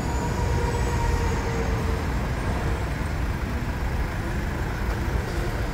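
Toyota SW4's 3.0 turbodiesel engine running at low revs as the SUV creeps forward and manoeuvres: a steady low rumble.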